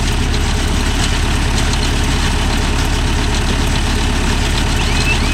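Mahindra Yuvo Tech Plus 585 tractor's diesel engine running steadily at constant speed with a fast, even pulse, as it drives a baler.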